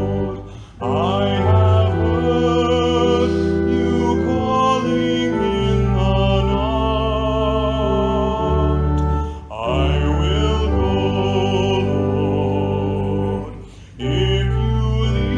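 A hymn or worship song sung over instrumental accompaniment: held, wavering vocal notes over steady low chords, in phrases with short breaks between them.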